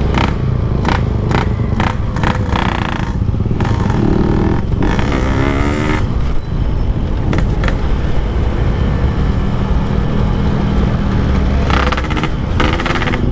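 Motorcycle engine running while riding on the road, under a steady low rumble, with a few short knocks along the way.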